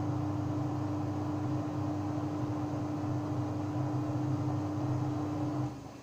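Samsung WW70J44A3MW front-loading washing machine spinning at 400 rpm, its Digital Inverter direct-drive motor giving a steady hum with a steady tone over a low rumble. The hum cuts off sharply near the end.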